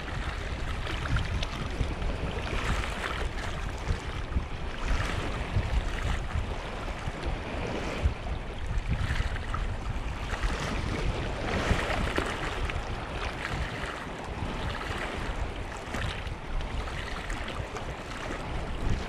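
Sea waves washing against shoreline rocks, surging and easing every few seconds, with wind rumbling on the microphone.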